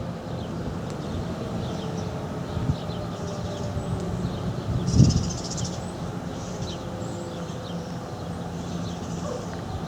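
Civil defense siren winding down in the distance, a faint tone whose pitch slowly falls, while small birds chirp. A brief low thump about five seconds in.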